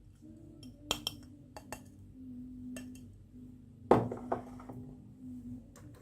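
Marbles and small toy vehicles clicking and knocking down a wooden marble run slope, with a loud knock about four seconds in, over a faint steady hum.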